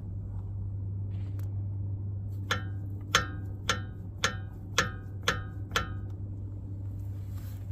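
Hammer blows on steel, a steady run of about seven ringing strikes roughly half a second apart after a single earlier blow, as a stuck part on the truck's front end is beaten loose. A steady low hum runs underneath.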